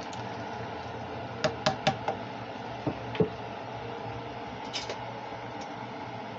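Light knocks and clinks of a cooking spoon against a saucepan on the stovetop: a quick run of four about a second and a half in, two more about a second later, and a faint one near the end, over a steady background hum.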